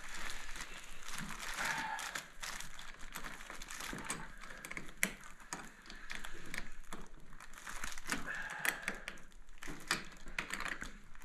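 Irregular small clicks, taps and rustling: handling noise as things are moved about.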